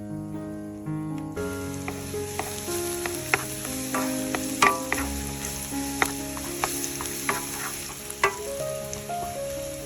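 Food frying in hot oil, a steady sizzle that starts suddenly about a second in, with scattered sharp pops and clicks as it is stirred, over soft background music.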